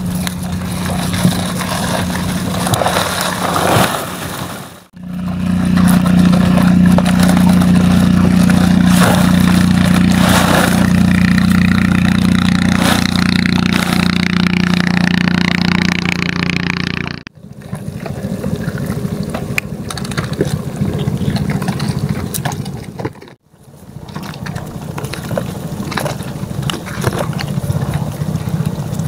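A small engine running steadily, under crackling and scraping as a wet net trap and plastic sheeting are handled and shrimp and crabs are shaken out. The sound breaks off abruptly three times.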